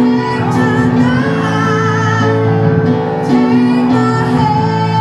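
Live dueling-pianos performance: piano playing with a voice singing over it.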